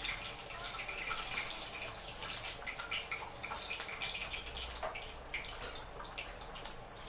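Hot oil in a kadai sizzling, with many small crackles, as fried chicken pakoras are lifted out with tongs.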